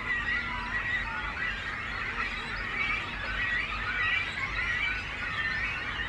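Great cormorant chicks calling at the nest: a continuous chatter of high, wavering calls from several birds at once, overlapping one another over a low rumble.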